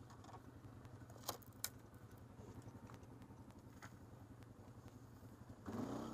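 ATV engine running at low speed with a steady low throb, two sharp clacks about a second and a half in, and the engine revving up briefly near the end.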